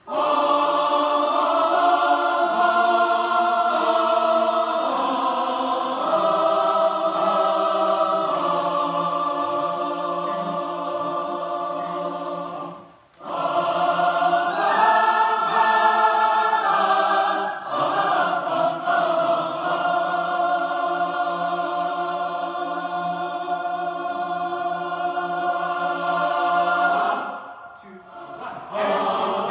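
Large mixed choir singing long held chords that change together from one to the next. The singing breaks off briefly about 13 seconds in and again a couple of seconds before the end, coming back in each time.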